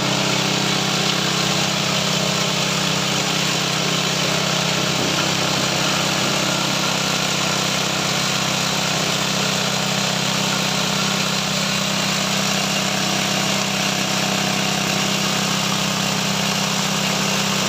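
Corn-cob feed grinder (a chopper-grinder machine with shear-type blades) running steadily, with a constant loud low hum under a dense rushing noise that does not change.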